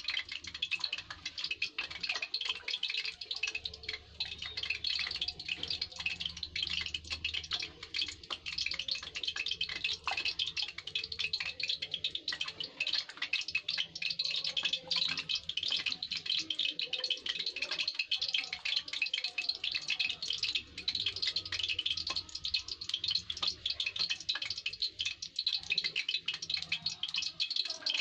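A hand squeezing and beating a thin gram-flour, curd and water batter in a steel pot, breaking up lumps. It makes a steady wet sloshing and squelching, full of fast small splashy clicks.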